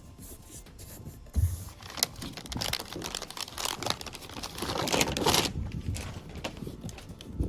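Plastic backing being peeled off an adhesive-backed surfboard grip pad as the pad is worked down by hand: irregular crinkling and crackling, loudest in the middle.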